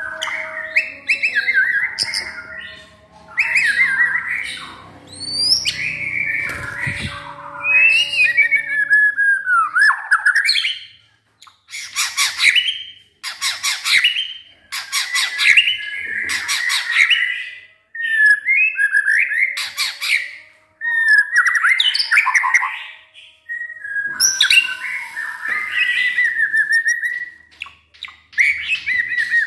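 White-rumped shama (murai batu) singing loudly in full song. It runs through a string of varied phrases (clear whistles, falling glides and bursts of rapid harsh notes), with short pauses between them.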